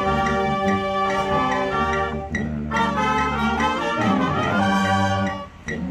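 High school marching band's brass and woodwinds (saxophones, trumpets, clarinets) playing held chords together, with a brief break and change of chord about two seconds in.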